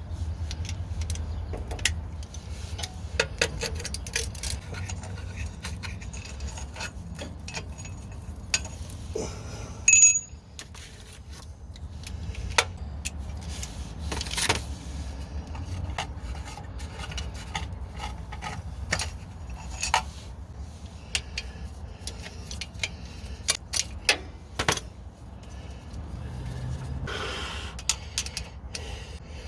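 Scattered metallic clicks, clinks and scrapes of hand tools over a low steady rumble, with one short bright ring about ten seconds in.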